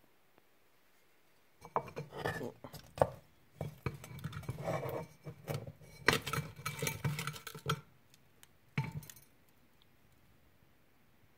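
A pot clinking and scraping against an oven shelf, with rough rubbing and rattling as a hand works a dried cake of pressed apple pomace loose from inside it. The rattling goes on for about six seconds, then there is one last short clatter.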